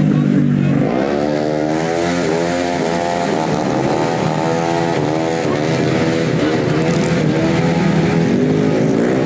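Tuned 150cc automatic scooter racing engines revving hard, the engine note rising in pitch and dropping back again and again as the throttle is worked.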